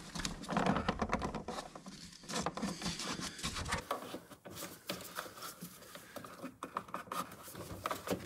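Plastic trim and fasteners in a car's engine bay being worked loose by hand and tool: irregular clicks, taps and scraping.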